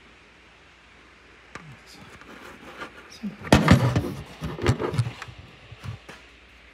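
Handling noise from a phone being moved while it records: a cluster of clicks, knocks and rubbing that starts about one and a half seconds in, is loudest around three and a half seconds, and fades out by about six seconds.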